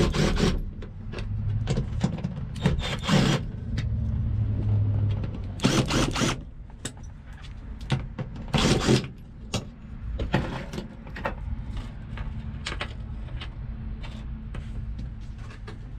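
Cordless power driver backing out the screws of a car's fuel pump access cover in several short runs, the motor whirring and the screws rattling in the sheet-metal floor pan. Lighter clicks follow near the end as the loose screws are handled.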